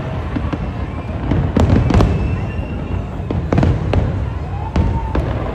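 A fireworks display: shells bursting in a string of sharp bangs, some a half second apart, over a constant low rumble.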